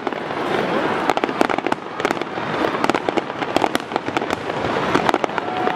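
Fireworks display: a dense, continuous crackle of many rapid pops and bangs with no let-up.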